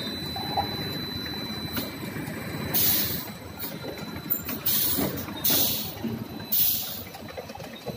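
Pneumatic multi-head bottle filling machine running with a steady mechanical noise, broken in the second half by several short, sharp hisses of compressed air venting from its air cylinders as the filling nozzles and bottle stops cycle.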